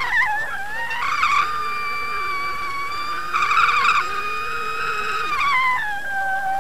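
Boat motor and propeller whine heard underwater, a steady tone with overtones whose pitch dips at the start, climbs back about a second in, and falls again near the end.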